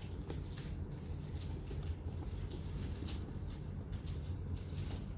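Hands handling a smartphone's retail box and packaging: an irregular run of soft rustles and light clicks over a steady low hum.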